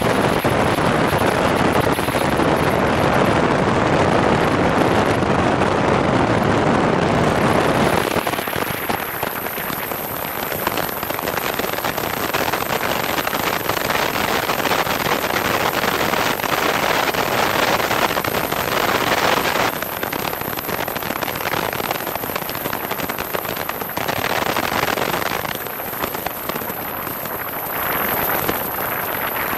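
Loud rushing and crackling buffeting of airflow and engine noise on a microphone mounted under a Piper Cherokee's wing, as the light aircraft rolls down the runway and lifts off. The noise is fullest for about the first eight seconds, then thins.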